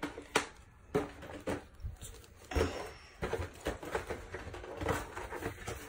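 Plastic Benson ventriloquist-dummy action figure being handled and its jointed legs worked, giving irregular clicks and light knocks with some rustling.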